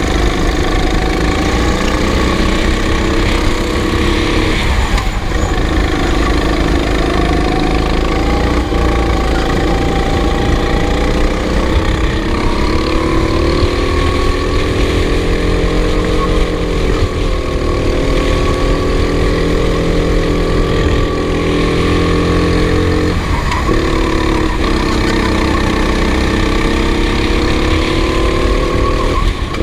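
Racing kart engine running hard throughout, its pitch rising and falling, with brief throttle lifts a few times before it picks up again.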